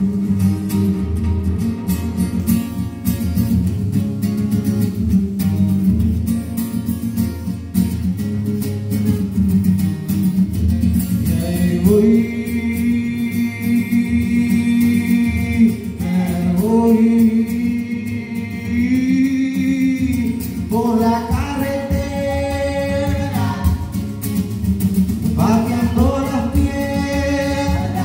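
Acoustic guitar strummed steadily, played live. About eleven seconds in, a woman's voice comes in over it, singing long held notes in phrases with short breaks between them.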